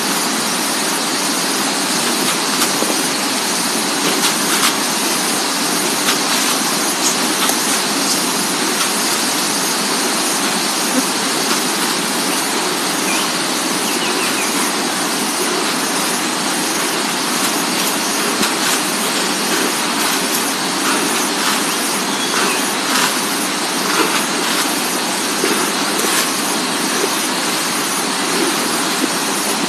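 A steady, even hiss with faint scattered ticks and rustles, as fertilizer is scooped from a plastic bucket and spread by hand around the base of a tree.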